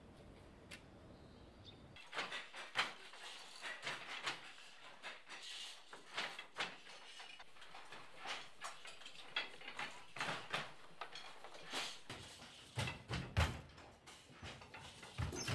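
Handling of black-and-white kasuri weft yarn as it is pulled off its spool and wound rapidly around a hand: a long run of irregular light clicks and small knocks, a few each second. Near the end there are also some duller low thumps.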